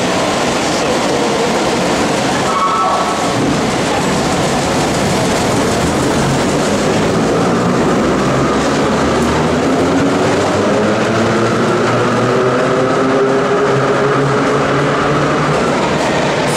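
Vintage IRT Lo-V subway train pulling out of a station and running past: the steady rumble of its wheels on the rails, with the motors' whine rising in pitch from about halfway through as it speeds up.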